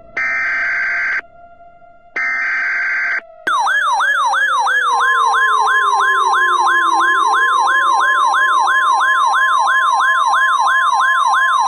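Emergency Alert System tones: two one-second bursts of warbling digital SAME header data. Then, about three and a half seconds in, a rapid yelping siren sweep about three times a second begins, joined a second later by the steady 1050 Hz weather-radio attention tone. A lower siren tone runs underneath, sliding down in pitch and climbing back up.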